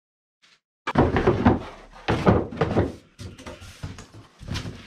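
Heavy metal table-saw stand parts clanking and knocking together as they are handled and set down: a burst of clatter starting about a second in, then scattered single knocks.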